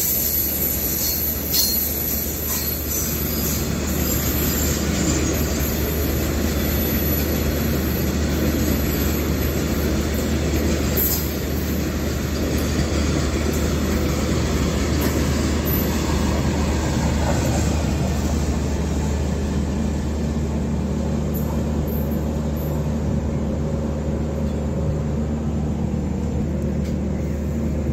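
Fully loaded freight train of cement wagons rolling past, a steady rumble of wheels on rail.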